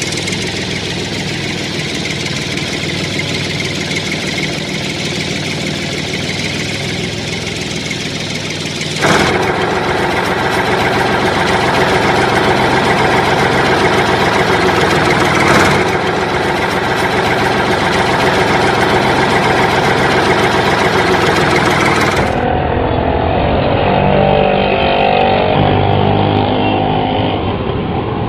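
A vehicle engine running steadily, dubbed over a toy tractor scene as a sound effect. The sound changes abruptly about nine seconds in, and again about twenty-two seconds in, where it turns duller.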